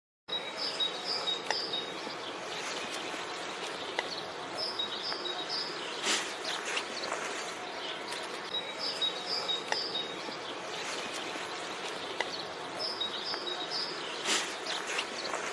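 Outdoor nature ambience: a steady hiss of insects with birds chirping, short high notes in quick groups of three that recur every few seconds. It starts abruptly just after the beginning, and there are two brief crackles, one midway and one near the end.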